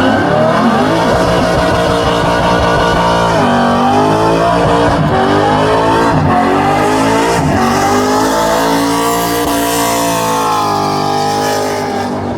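Holden Commodore burnout car's engine held at high revs while its tyres spin in a burnout. The revs dip sharply and climb again a few times.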